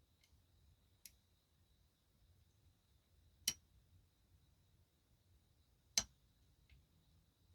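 Quiet lock picking on a Keyless Entry "Sina #1" challenge lock: two sharp metallic clicks about two and a half seconds apart, with a couple of fainter ticks, as the pick works the pin stacks.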